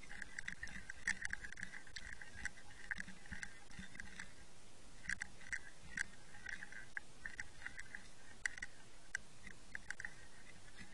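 Irregular sharp clicks and crackles heard underwater, with bursts of rapid ticking.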